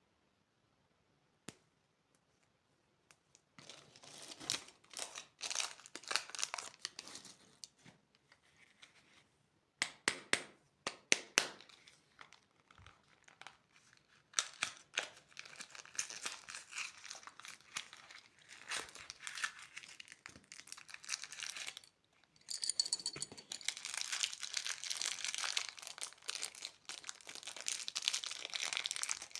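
Plastic candy wrappers crinkling and tearing as they are handled and unwrapped, coming in spells with short pauses. It starts after a few quiet seconds with a single click, has a few sharper crackles about ten seconds in, and becomes denser and continuous over the last seven seconds.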